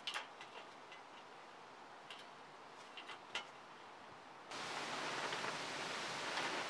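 A plier-type saw set squeezing handsaw teeth, heard as a few sharp, irregularly spaced metal clicks as it closes on one tooth after another. About four and a half seconds in, a steady hiss comes in.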